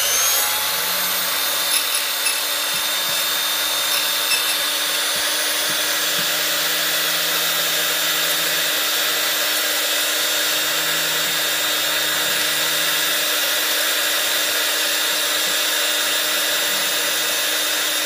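Silca 007-A portable key duplicating machine running, its motor and cutter wheel giving a steady high whine after rising to speed in the first moment. A few brief louder scrapes about two and four seconds in are the cutter biting into the key blank as a duplicate key is cut.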